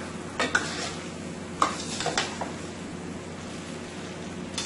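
Chicken frying in curry masala in a stainless steel pot, a steady sizzle, as a spoon stirs it. The spoon knocks and scrapes against the pot a few times: about half a second in, twice around the middle, and near the end.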